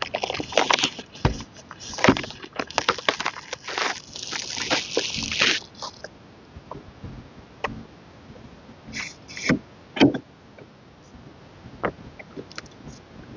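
A K-pop album's packaging being unwrapped and handled by hand: dense crinkling and rustling of wrapping for the first six seconds, then scattered taps and short rustles, with a sharp knock about ten seconds in.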